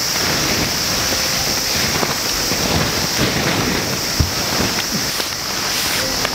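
Steady rain: an even hiss dotted with the ticks of single drops and a few soft low thumps, the sharpest about four seconds in.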